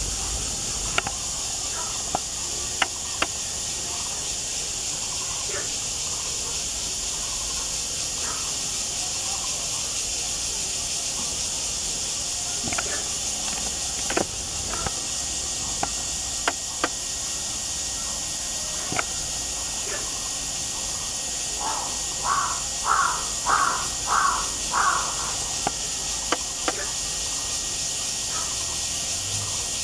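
Toco toucan calling, a run of about six harsh, crow-like croaks in quick succession lasting about three seconds, a little past two-thirds of the way through. A steady high hiss and a few faint clicks run underneath.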